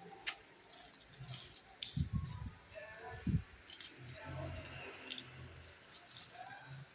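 Parcels and goods being handled during unboxing: scattered clicks and rustles with a few low thumps about two and three seconds in, and faint voices in the background.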